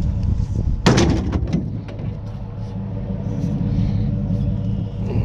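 A thrown piece of scrap lands with a loud crash about a second in, followed by a few short rattles, over a steady low rumble.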